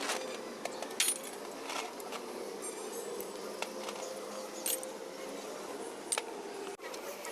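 Light metallic clinks and taps of hand tools and engine parts being handled, over a steady hum.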